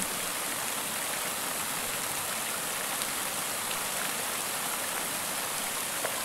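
Water pouring over the wide crest of a low concrete dam (weir) and splashing into the foam below: a steady, even rushing of water.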